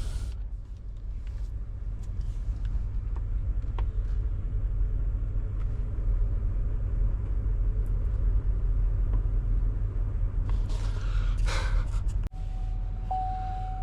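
Truck engine running with a steady low rumble as the truck creeps slowly downhill. Near the end the sound breaks off abruptly and a steady high tone follows.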